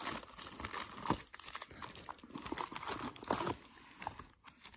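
Foil trading-card wax packs crinkling and crackling as handfuls are lifted and shuffled out of a cardboard box, irregular and thinning out near the end.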